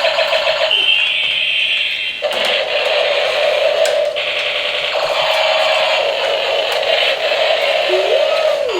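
Battery-powered toy police helicopter playing its electronic sound effects through a small tinny speaker: a steady buzzing drone, with a high held tone about a second in and a couple of short breaks.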